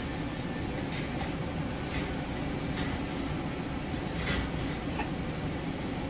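A steady low rumble with several light, short clinks of a metal utensil working in a pot of hot sanitizing water.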